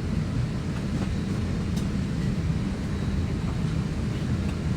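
Steady low rumble of air and machinery inside an Airbus A321's passenger cabin, with no change or break.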